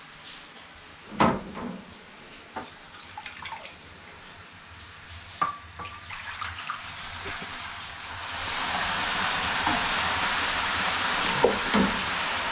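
Water ladled onto the hot stones of a wood-fired sauna stove, hissing into steam: a steady, loud hiss starts about two-thirds of the way in and holds. Before it, a few light knocks and splashes of the ladle in the water bucket.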